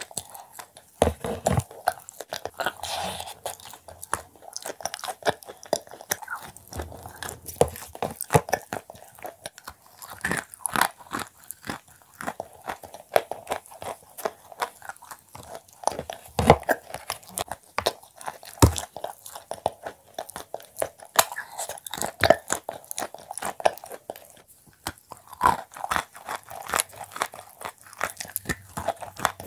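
Repeated biting and chewing of a paste-coated shortbread cookie: crisp crunches and crackles, one after another.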